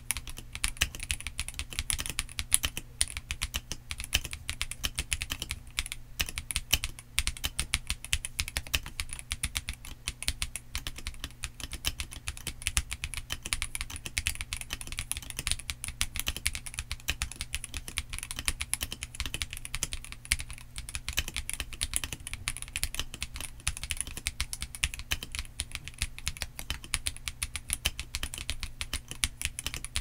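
Continuous fast typing on a stock KBDcraft Adam 0110b mechanical keyboard fitted with S² Engine switches and PBT keycaps: a dense, even stream of key clicks.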